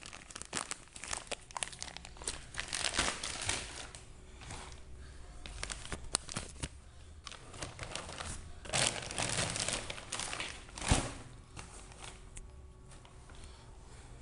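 Packaging wrap being pulled off a new motorcycle exhaust: irregular crinkling and tearing with small clicks, in louder spells, and one sharp tap about three-quarters of the way through.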